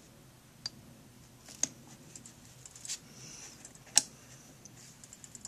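A few light, sharp metal clicks and handling noises from a Springfield 1911 pistol being worked by hand as its slide is pushed back during field stripping. The loudest click comes about four seconds in.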